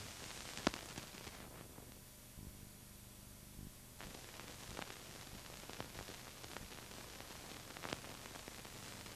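Steady hiss of an old film soundtrack with a few scattered clicks and pops.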